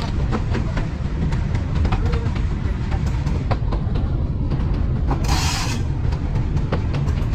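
Train running on the track: a heavy, steady rumble with rapid irregular clicks and knocks from the wheels on the rails, and a short hiss about five seconds in.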